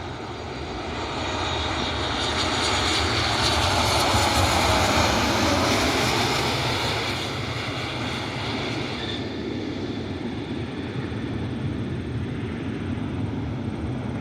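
Boeing 737 MAX 8 airliner's jet engines passing on landing approach: the noise swells to a peak about four to five seconds in, with a tone that falls in pitch as it goes by, then settles to a steady, fading rumble.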